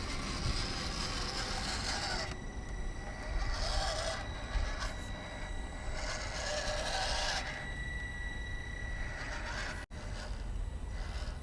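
Small RC crawler running: a steady high electric-motor whine with irregular bursts of scraping and rubbing as the truck works over rough ground, cut briefly by a sudden dropout near the end.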